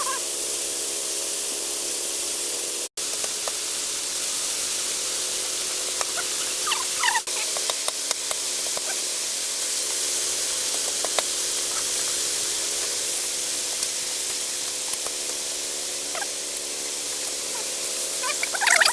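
Steady sizzle of food frying in hot oil, cutting out for an instant about three seconds in. A few short, high chirps come in around seven seconds in and again near the end.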